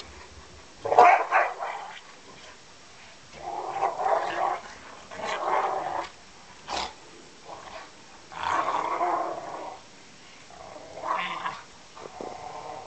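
Two dogs growling in play as they wrestle, in rough bursts of about a second, six or so times with short pauses between.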